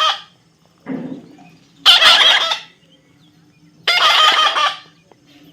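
Parrot screeching harshly, two loud calls about two seconds apart, with a softer sound just before the first.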